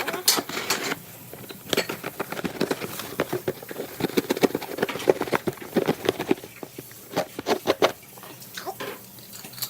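A cardboard box being cut open with a knife and handled: many quick, irregular scrapes, clicks and crackles of blade and cardboard.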